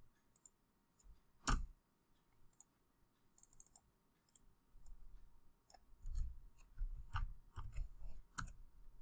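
Scattered clicks of a computer mouse. There is one louder click about one and a half seconds in, a few faint ones after it, and then a quick run of clicks near the end.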